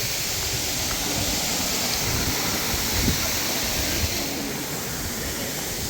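Waterfall's steady rushing water, an even hiss with no pauses.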